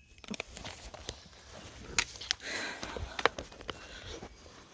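A hiker's footsteps on a rocky trail: irregular sharp clicks and scuffs over a soft rustle.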